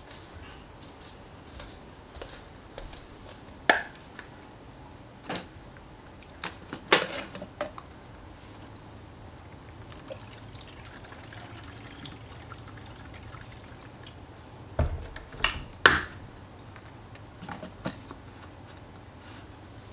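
A small plastic portable humidifier being refilled: sharp plastic clicks and knocks as its top is taken off and put back on, and water poured into it from a plastic bottle around the middle.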